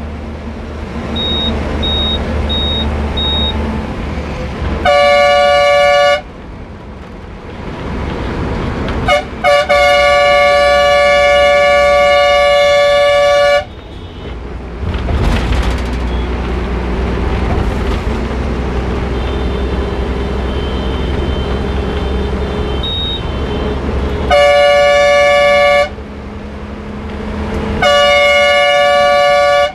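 A bus horn sounding in loud multi-tone blasts: one short blast, then two quick toots and a long blast of nearly four seconds, then two more blasts near the end. The bus engine drones steadily underneath.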